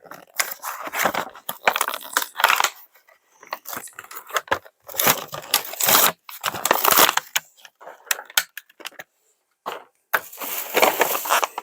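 Thin plastic toy packaging being crinkled and torn open by hand, in irregular bursts with short pauses.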